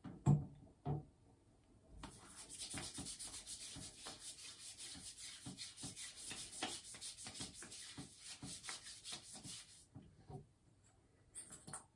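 Two thumps near the start, then hands rubbing lotion briskly over bare arms: quick, rhythmic skin-on-skin rubbing strokes for about eight seconds that stop abruptly, followed by a few light clicks.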